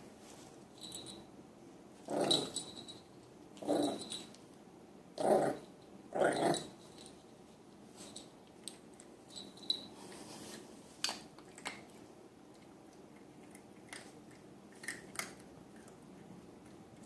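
Puppy growling in four short bursts in the first half, followed by scattered small clicks and taps.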